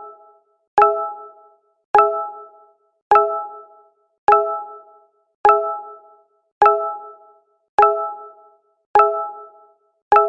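Google Hangouts notification sound, a short bright ding that dies away quickly, looped so that it repeats evenly about every 1.2 seconds, nine times.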